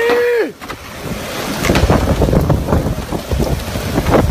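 Strong storm wind gusting and buffeting the microphone in a rough, heavy rush. At the very start a short cry falls in pitch and breaks off.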